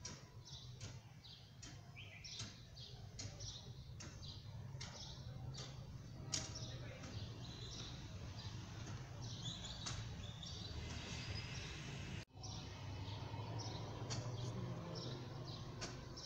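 Small birds chirping in short, irregular calls over a steady low rumble. The sound drops out for an instant about twelve seconds in.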